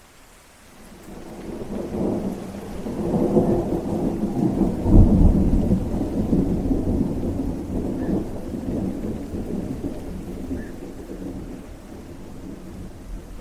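Rolling thunder over steady rain: a low rumble swells from about a second in, peaks around five seconds, then slowly dies away.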